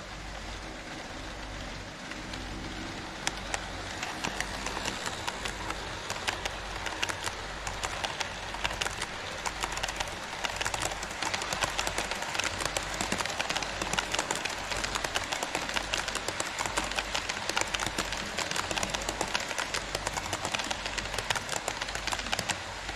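HO-scale model Twilight Express coaches rolling on KATO Unitrack, the wheels making a steady rolling hiss with rapid, irregular clicking over the rail joints. The clicking starts about three seconds in and grows denser and louder as the train passes close by.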